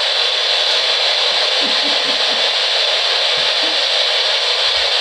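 Loud, steady hiss of static, even and unchanging, with a few faint wavering low sounds under it between about one and a half and four seconds in.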